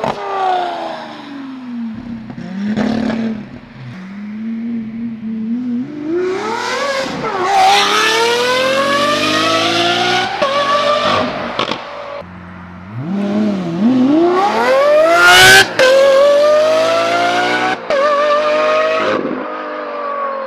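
Lamborghini Aventador SVJ's V12 engine through a Gintani exhaust, first passing with a falling pitch, then accelerating hard through the gears: the revs climb and break off at each upshift. A sharp crack comes at one upshift, about fifteen seconds in.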